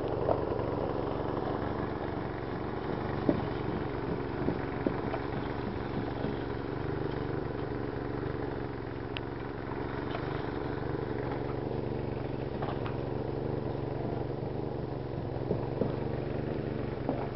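A small engine running steadily at an even speed, with a few short, sharp knocks here and there.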